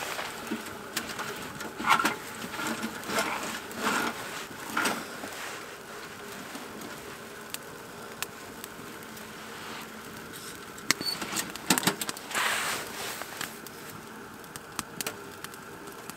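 Small twigs being handled and fed into a small wood-burning tent stove through its door: scattered clicks and rustles, busiest in the first few seconds and again about two-thirds of the way through.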